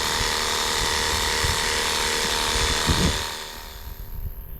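Pressure washer spraying water in a steady hiss, which cuts off about three and a half seconds in.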